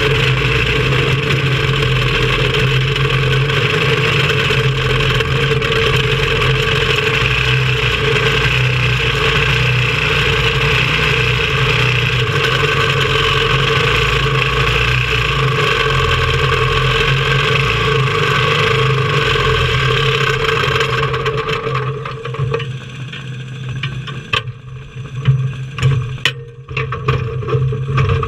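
Engine of a small caged race car running steadily, heard from on board. About three-quarters of the way through it dies away, leaving a few clicks and knocks as the car rolls slowly along.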